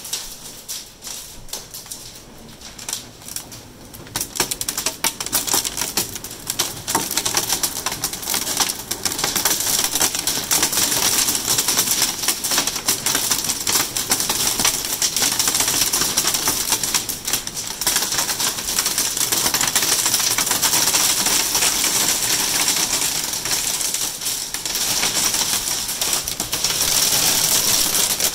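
Hail striking the windows and house: a dense, rapid clatter of ticks that builds over the first several seconds and then holds steady and loud.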